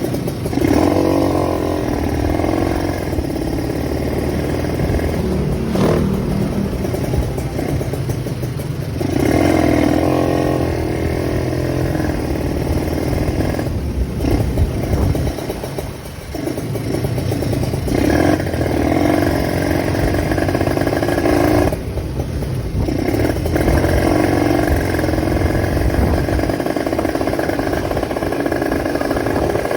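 Motorcycle engine breathing through a PWK 28 carburetor with an open velocity stack, revved in several throttle bursts of a few seconds with idle between. The carburetor intake gives the raspy 'ngorok' snoring growl that this setup is tuned for.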